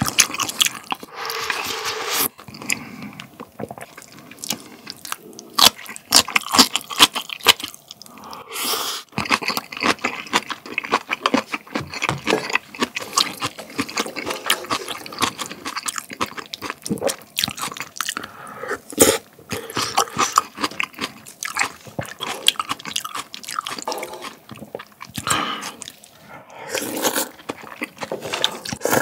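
Close-miked eating sounds of spicy ramen: wet slurps of noodles and broth, chewing, and crunchy bites of kimchi early on. The clicks and slurps come in rapid clusters with brief pauses between mouthfuls.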